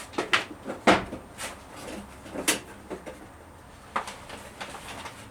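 Irregular knocks and clatters of objects being handled and set down, a dozen or so, the loudest about a second in.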